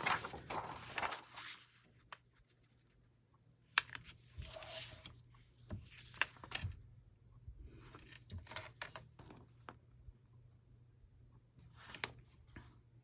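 Sheets of paper being handled, rustling and sliding against each other in four short bursts with a few light taps, as loose pages are gathered into a signature.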